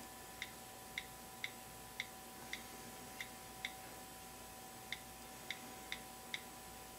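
iPhone on-screen keyboard clicking as a password is typed in, one short tick per key press, about two a second. There are eleven ticks in all, with a pause of about a second near the middle.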